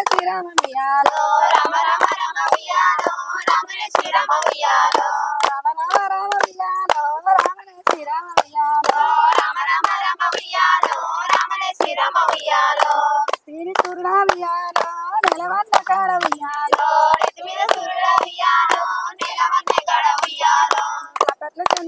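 Women and girls singing a Bathukamma folk song together, with steady hand-clapping keeping time at about two to three claps a second.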